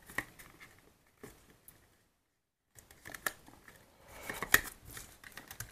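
Faint clicks and light taps of a plastic OO-scale Hornby Deltic model locomotive body and chassis being handled, with a brief stretch of dead silence about two seconds in and a cluster of sharper taps near the end.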